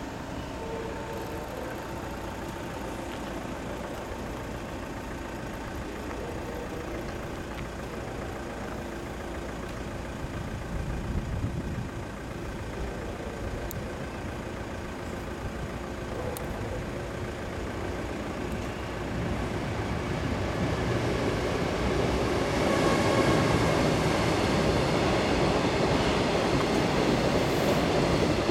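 Meitetsu train approaching and running past, its rumble building steadily through the last third and loudest near the end. Before that, a steady low background rumble.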